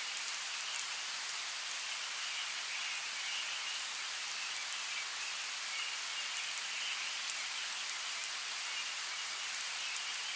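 Light rain falling in a forest: a steady hiss with separate drops ticking sharply. Under it a high, pulsing chorus of calls comes and goes every second or two.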